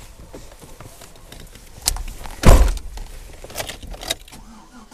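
Truck door shut with a single heavy thump about halfway through, with small clicks and a jingle of keys around it as the driver settles into the seat.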